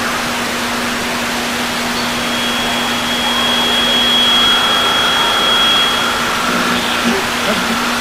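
Loud radio static: an even hiss over a steady low hum, with a thin high whistle that comes in about two seconds in and fades out around six seconds.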